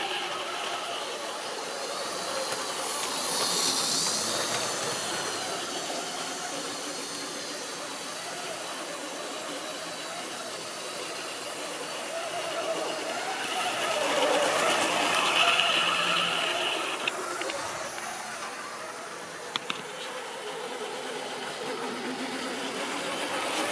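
OO-gauge model trains running on the layout: the electric motors whine and the wheels rattle along the track. The sound swells twice as a train runs close by, with a high whine during the second swell and a few sharp clicks soon after.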